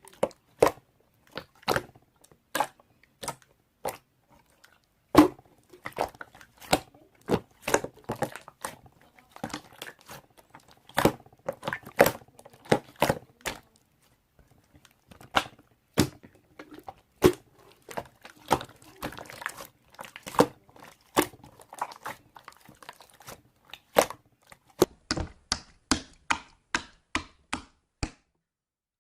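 Slime being pressed and poked, making sharp wet pops and clicks. They come irregularly, pause briefly midway, and near the end fall into a steady run of about two pops a second before stopping.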